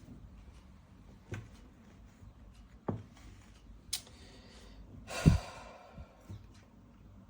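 A few faint, scattered clicks and knocks, then about five seconds in a short breathy burst with a low thump, like a sigh close to the microphone.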